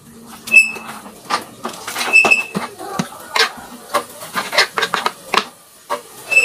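Kitchen knife peeling and cutting onion and tomato on a wooden cutting board: irregular knocks and taps of the blade on the board. Three short high-pitched pings come about half a second in, around two seconds in, and at the end.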